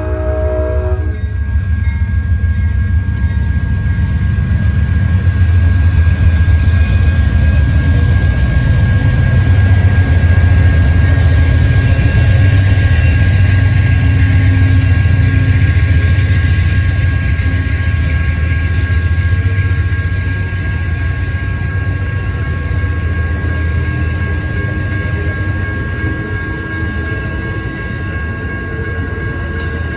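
The last of an Amtrak GE P42DC locomotive's horn chord cuts off about a second in. Then the diesel locomotive and its Superliner bilevel passenger cars rumble past over a grade crossing, loudest midway and easing off over the last third. Two steady high tones sound over it throughout.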